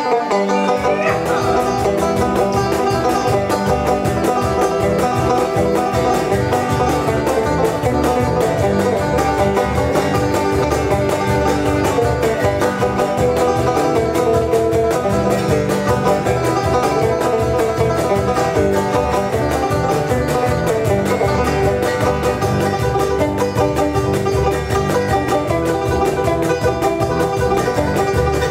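Live acoustic band playing a bluegrass-style tune: banjo picking over acoustic guitar, electric bass guitar and cajon, with a steady, fast beat.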